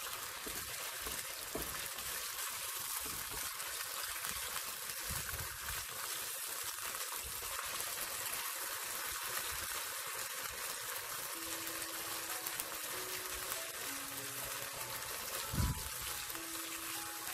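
Thin slices of marinated beef sizzling in hot oil in a wok, a steady frying hiss, while chopsticks stir and spread the slices as the meat is seared just until it changes colour. A single dull thump sounds near the end.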